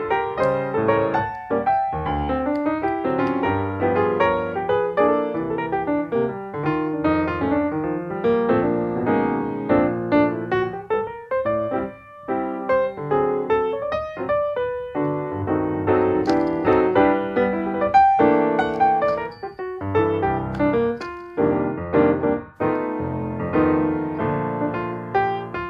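Background piano music: a steady flow of notes.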